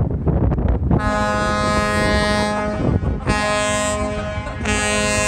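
Large ship's horn sounding three steady blasts: a longer one about a second in, then two shorter ones, the last running on past the end. Wind rumbles on the microphone throughout.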